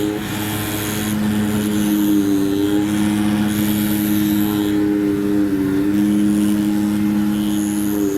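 CNC oscillating knife cutting machine running: a steady motor whine made of several tones, whose pitch steps up and down every second or so as the cutting head changes speed and direction, with a hiss that comes and goes.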